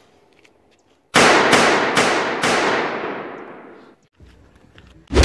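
Four pistol shots in quick succession, about half a second apart, followed by a long fading echo. A single sharp thump comes near the end.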